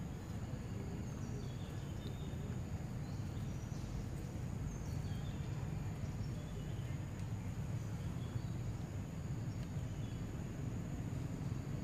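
Steady low outdoor background noise with a thin, steady high insect drone and a few faint bird chirps in the first half; no monkey calls stand out.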